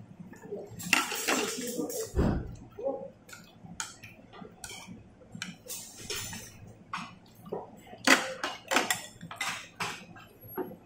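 Tableware clinking during a meal: chopsticks and porcelain spoons tapping and scraping against ceramic bowls and plates, in many short irregular clinks. A dull knock on the table comes a little after two seconds in.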